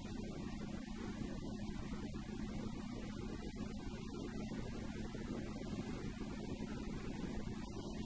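Goggomobil's air-cooled two-stroke twin engine droning steadily at a constant cruising speed, with tyre and road noise, heard from inside the car.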